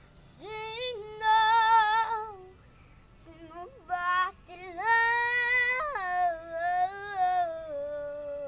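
A young girl singing solo in several phrases of long held notes, her pitch stepping up and down between them.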